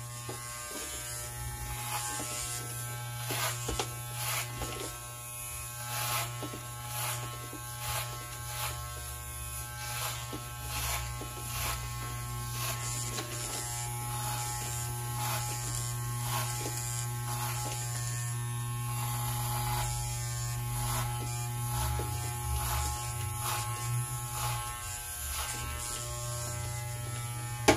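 Corded electric hair clippers running with a steady buzz as they are passed over the sides of the head, with short irregular rasps as the blades cut through hair.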